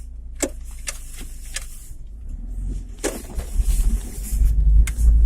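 Chevrolet Niva heard from inside the cabin as it pulls away: a low engine and drivetrain rumble that grows louder over the last two seconds, with several sharp clicks or knocks.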